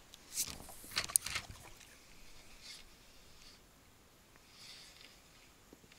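Water splashing around a small boat on a river: two brief splashes in the first second and a half, with a sharp knock in the second, then only faint water noise.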